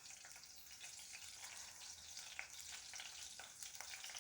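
Green chillies frying in a few teaspoons of hot oil in a kadai: a faint, steady sizzle with a few small pops.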